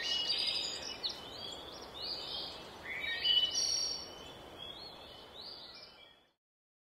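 Birds chirping and twittering in short calls over a faint hiss of outdoor ambience, fading out about six seconds in.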